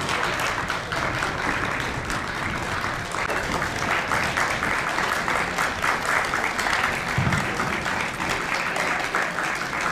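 A group of people applauding, many hands clapping steadily and continuously.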